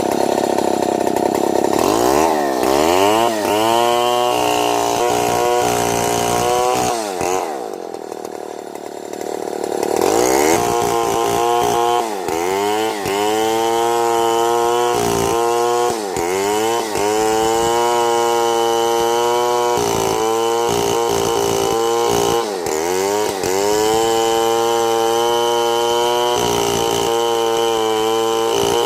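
Two-stroke chainsaw cutting wood, revving to full throttle. It eases back for a few seconds about a third of the way in, then runs high again with several brief dips in engine speed.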